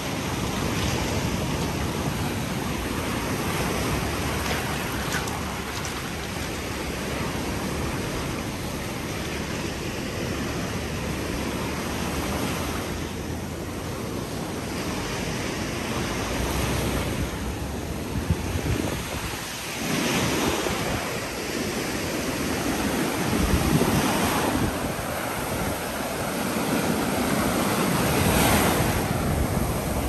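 Sea waves breaking and washing up on the beach, a continuous hiss that swells and falls back every few seconds, with wind rumbling on the microphone.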